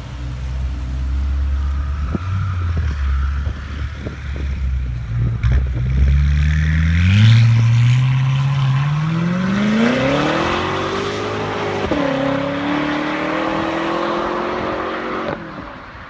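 BMW M6's twin-turbo V8 through a catless downpipe and valved Fi cat-back exhaust. It rumbles at low revs with a couple of sharp cracks, then accelerates hard, the revs rising for about four seconds. The pitch drops suddenly at an upshift about twelve seconds in, and the sound fades as the car pulls away near the end.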